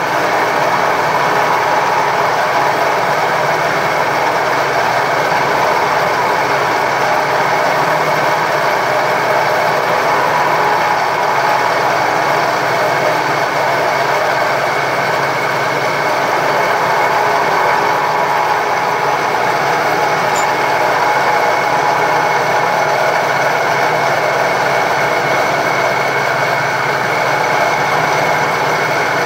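Vertical milling machine running steadily, its end mill taking a light first pass along the torch-cut edge of a steel plate and cutting into a high spot.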